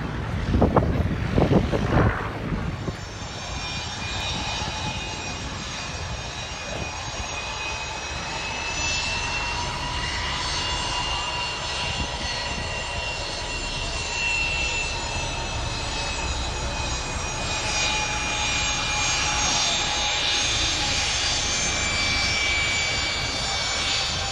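Aircraft engine noise: a steady drone with a high whine made of several held tones that drift slightly in pitch. There are a few loud low rumbles in the first two seconds.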